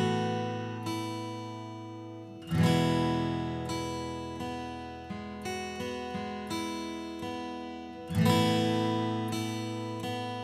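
Background music: acoustic guitar chords strummed and left to ring, with big strums about two and a half seconds in and again near eight seconds, and lighter strokes between them.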